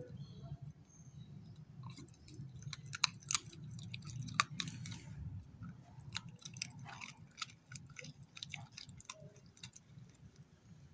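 Beagle chewing a raw chicken breast bone: a run of sharp, irregular crunches and cracks starting about two seconds in, loudest early on and thinning out toward the end.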